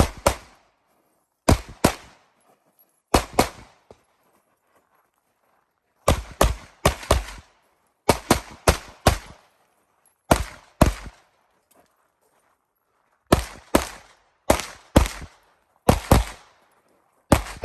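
Pistol shots fired in quick pairs and short strings of three or four, with gaps of a second or more between groups: a competition stage run, the shooter moving between targets or positions.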